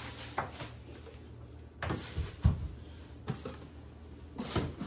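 Cardboard boxes and packaging handled and moved on a counter: rustling with several knocks, the loudest about halfway through.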